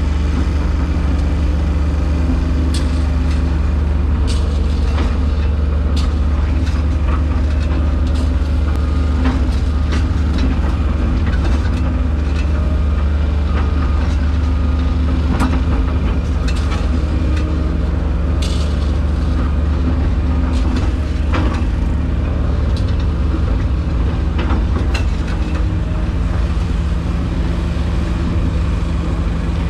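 Excavator's diesel engine running steadily as it digs, heard from inside the cab, with scattered knocks and scrapes from the bucket working the dirt.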